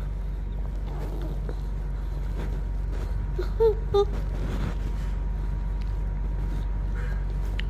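A pet parrot giving two short calls in quick succession, over a steady low hum.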